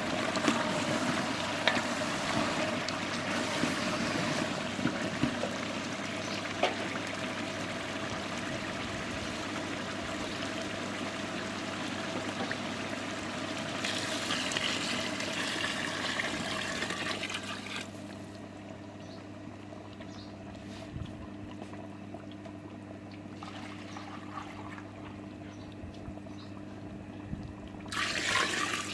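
Water pouring and running, with a steady low hum underneath. About eighteen seconds in it drops to a quieter flow, then picks up again near the end.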